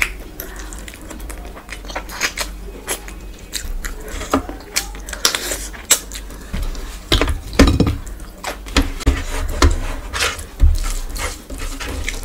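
Eating by hand: fingers squeezing and gathering chicken tehari rice against a tray, and close-up chewing with many irregular wet clicks and smacks.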